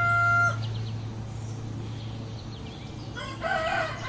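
Rooster crowing: the held last note of one crow cuts off about half a second in, and a second cock-a-doodle-doo begins about three seconds in, over a steady low hum.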